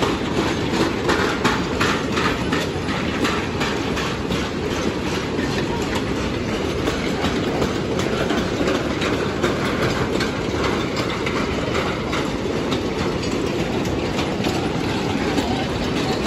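A long train of empty narrow-gauge sugar-cane trucks rolling past: a steady rumble of steel wheels on rail, with rapid clicking over the rail joints.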